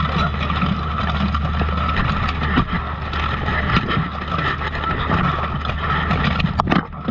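Close-quarters melee in full steel plate armour heard from a chest-mounted camera: a steady low rumble of the camera being jostled and rubbed by armour, with frequent clanks and knocks of steel plate and weapons. A sharp knock near the end.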